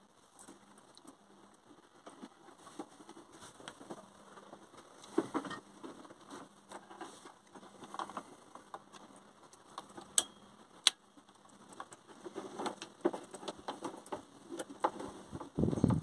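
Hands handling wiring and a small electrical switch inside a backhoe cab dashboard: scattered light clicks and rustling as spade connectors are worked onto the switch terminals, with two sharp clicks about ten seconds in. A louder low sound comes at the very end.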